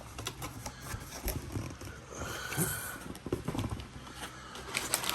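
A cardboard shipping box being opened and its packaging handled: rustling and scraping with scattered light taps and knocks.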